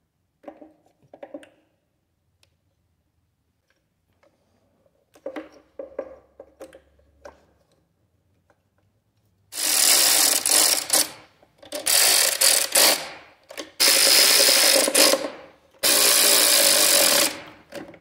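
A cordless electric ratchet runs in four bursts of about a second and a half each, driving down the ignition coil-pack hold-down bolts on a Ford 4.6 V8. Before that come a few light clicks and knocks of parts being handled.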